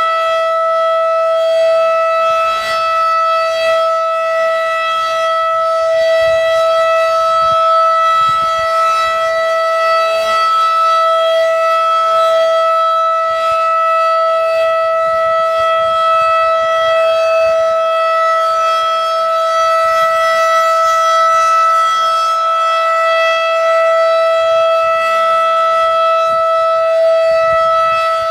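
Federal Signal 2001-DC mechanical warning siren sounding a steady single tone at full speed during a test. Its loudness swells and fades slightly as it rotates.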